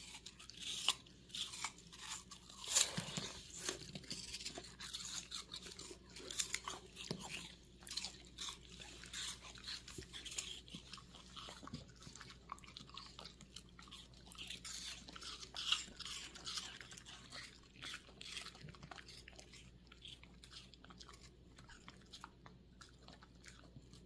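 A dog chewing pieces of raw apple, with irregular crisp crunches throughout and a few louder bites about three seconds in and around the middle.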